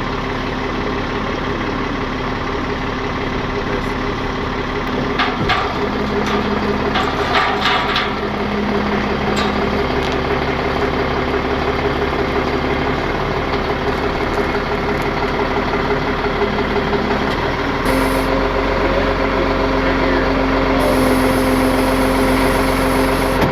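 Tow truck engine running steadily, its note shifting a little about five seconds in and again near the end. A few sharp knocks come in between about five and eight seconds in.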